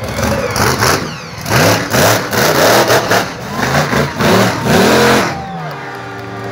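Monster truck engine revving hard in repeated surges, its pitch swinging up and down, then settling to a steadier, lower running about five seconds in.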